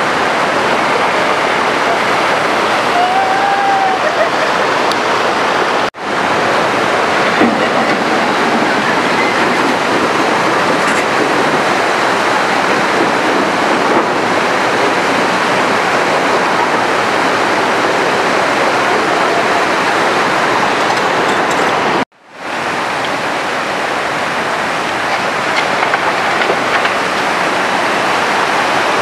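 Flood-swollen mountain river rushing over boulders: a loud, steady roar of water. The sound cuts out abruptly twice, about six seconds and twenty-two seconds in.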